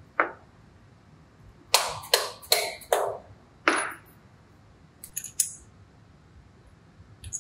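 Soft-face hammer knocking a bolt through a motor mount and its washers: one strike, then four quick strikes about two a second and one more. A few lighter metallic clicks of the mount parts being handled follow later.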